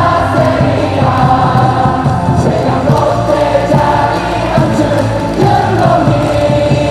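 Baseball cheer song playing loud over the stadium speakers with a steady beat, many voices singing it in unison.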